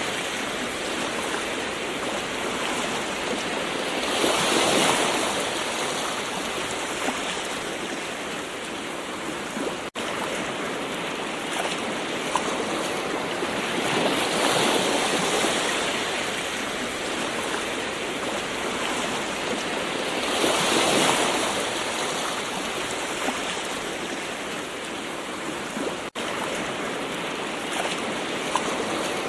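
Gentle ocean waves washing in, a steady wash that swells with a breaking wave every several seconds, about four times, then eases back. The wash cuts out for an instant twice.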